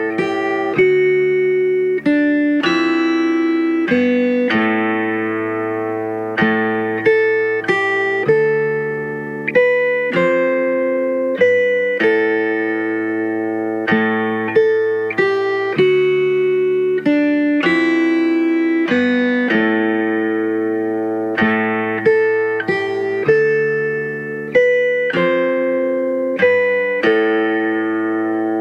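Background music of a plucked string instrument, guitar-like, playing a slow run of single notes and chords, each struck sharply and left to ring and fade.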